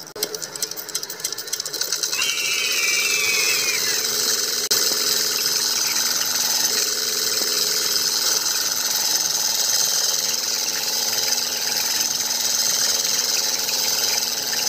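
A small geared electric motor, the kind that drives a model tractor or chaff cutter, running steadily with a fast buzzing rattle. A brief wavering squeal comes about two seconds in.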